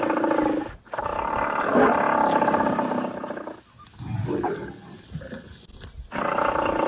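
A big cat roaring in long, loud bouts, with a brief break about a second in and a quieter pause from about four to six seconds in.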